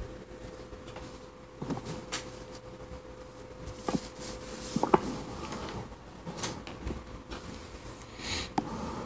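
Handling noises as a sheet of drawing paper is slid and turned on a wooden desk: scattered rustles, taps and knocks, the loudest about five seconds in. A faint steady hum runs underneath.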